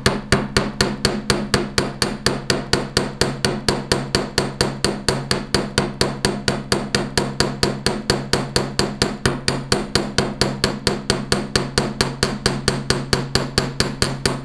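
Fretz chasing hammer striking the end of a 12-gauge copper wire on a steel bench block in a steady run of about four light blows a second, flattening the wire end into a round paddle.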